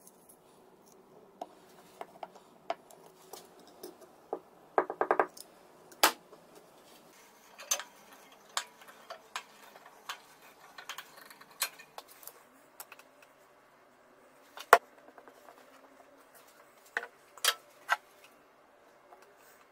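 Irregular clinks and knocks of metal parts and tools being handled on a workbench, with a quick rattle of several taps about five seconds in and a sharp knock near fifteen seconds.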